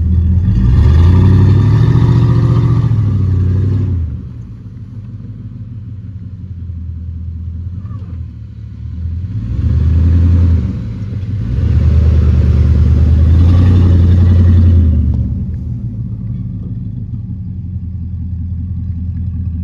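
1998 Dodge Ram 1500's 5.2 Magnum V8, running through headers and an H-pipe exhaust, revs up in three surges: about a second in, around ten seconds, and from about eleven to fifteen seconds. Between the surges it drops back to a lower steady run.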